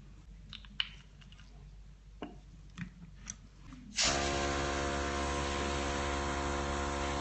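A few light clicks and taps as the airbrush is handled, then about four seconds in an airbrush compressor switches on suddenly and runs steadily, a motor hum with a hiss of air.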